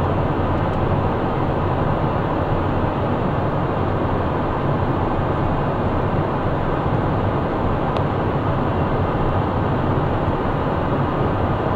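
Steady cockpit noise of a Cessna Citation 501 in flight: the even rush of airflow over the cabin and the hum of its twin Pratt & Whitney JT15D turbofans, with a faint click about eight seconds in.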